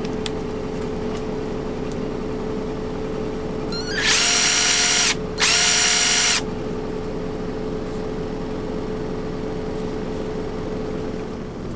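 12-volt quarter-inch cordless power tool run free twice: a quick rising spin-up into a steady high whine for about a second, a brief stop, then about another second.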